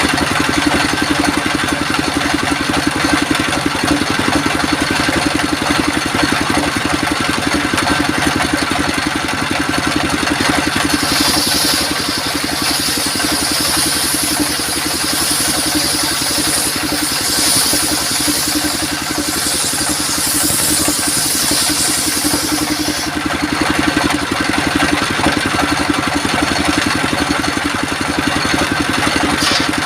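Sawmill engine running steadily. From about eleven seconds in to about twenty-three, a high hiss rides over it as the saw blade cuts through coconut wood.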